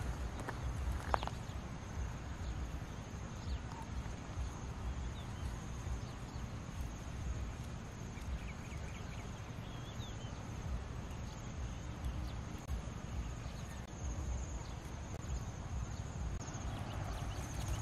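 An insect's thin, steady high-pitched drone over a low rumble, with a few faint chirps and a single click about a second in.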